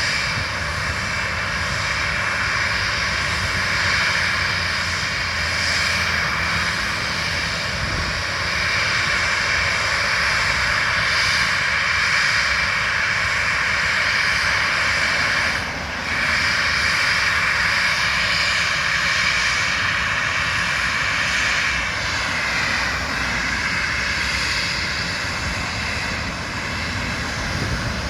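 Jet airliner's twin engines running loud and steady, a whine with several high tones over a broad rush. The sound dips briefly about halfway through, and a tone falls in pitch a few seconds later.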